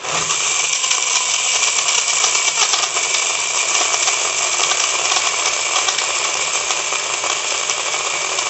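BlendJet cordless, battery-powered portable blender running, blending a fruit smoothie with added ice to thicken it. It starts suddenly and runs loud and steady, with many fine clicks of ice through it.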